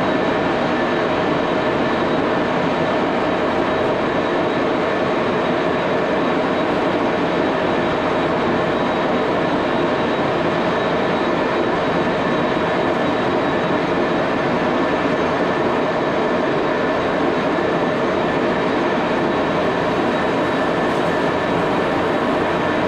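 Baby Axelson engine lathe running under power as the tool takes a continuous cut along an aluminum bar, peeling off stringy chips. It makes a loud, steady machine noise with a few steady whining tones.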